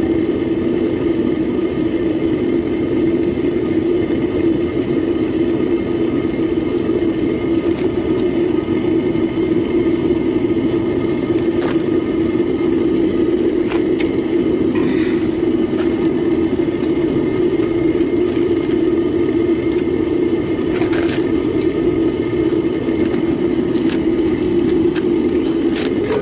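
Propane burner firing into a homemade foundry furnace, a loud steady rushing sound, as aluminum melts down in the crucible. A few faint ticks come through it.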